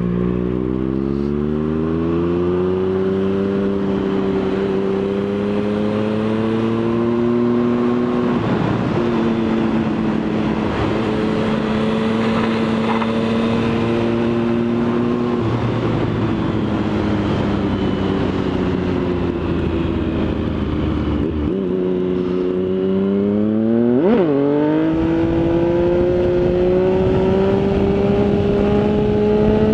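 Triumph Speed Triple 1050 inline three-cylinder engine pulling hard under the rider. The revs climb, fall back at gear changes several times, and climb again, with a quick sharp rev spike late on, over a steady rushing noise.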